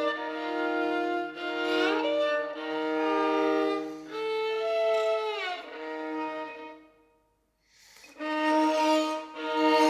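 Contemporary experimental music played on a bowed string instrument, with sustained notes, one note sliding downward about five seconds in, and a brief silence about seven seconds in before the notes resume.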